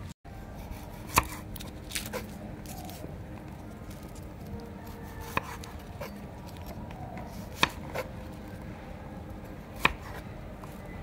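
Chef's knife slicing red shallots on a wooden cutting board: single sharp knocks of the blade hitting the board, one every second or two. The loudest knock comes about a second in.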